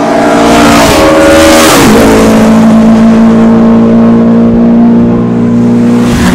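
Race car passing at speed. Its engine note drops in pitch as it goes by, about a second and a half in, then holds steady under full throttle as it runs on down the straight. A second car's engine begins to pass near the end.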